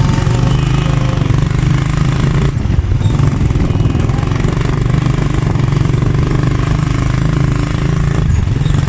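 Small motorcycle's engine running steadily while riding, heard close up, with two short lulls: about two and a half seconds in and near the end.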